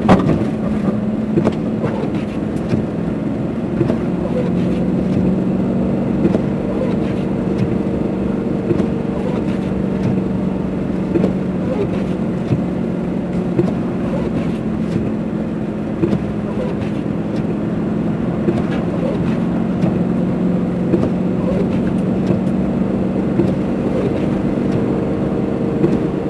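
Car driving on snow-covered roads, heard from inside the cabin: a steady engine and road hum with scattered small knocks and clicks.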